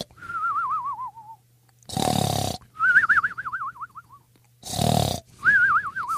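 Cartoon snoring sound effect: a loud rasping snore breathed in, then a long warbling whistle breathed out that wobbles and slides down in pitch, repeating about every two and a half seconds.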